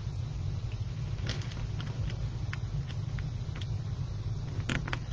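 Faint scattered clicks and light rustling of hands handling plastic zip ties and wreath mesh, over a steady low hum.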